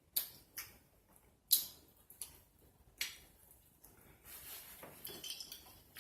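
Eating utensils clinking and scraping against a plate, a handful of sharp clinks with the loudest about a second and a half in, then a softer scraping stretch near the end.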